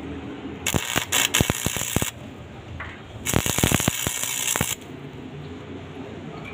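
Stick-welding arc crackling as tack welds are laid on a steel pipe joint during fit-up: two bursts of about a second and a half each, the second starting about three seconds in.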